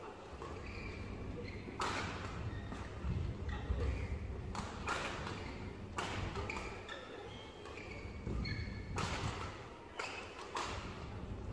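Badminton rackets striking a shuttlecock in a fast doubles rally, sharp hits coming roughly once a second, with short squeaks from players' shoes on the court floor between them. A large hall echoes behind.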